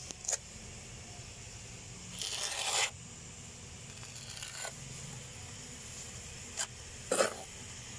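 Small steel trowel spreading and scraping wet cement mortar over a concrete floor to level a bed for mosaic tiles: one long scrape about two seconds in, with shorter scrapes and taps, the sharpest near the end.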